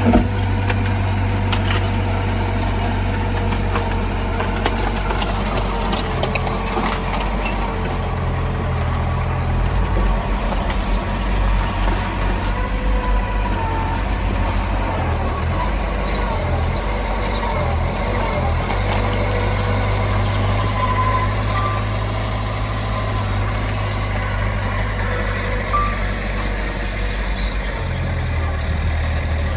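Heavy diesel earthmoving machinery running steadily at work: a deep engine drone whose note shifts a few times, with a faint wavering whine above it.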